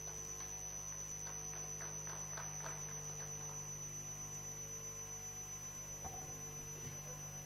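Steady electrical mains hum with a thin high-pitched whine, coming through the chamber's sound system. Faint voices murmur in the first few seconds.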